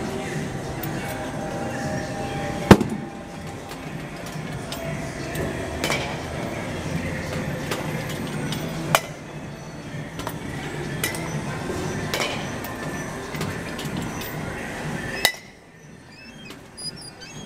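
Baseball bat hitting pitched balls in a batting cage: a series of sharp cracks, the loudest about three seconds in, over a steady background hum that cuts off suddenly near the end.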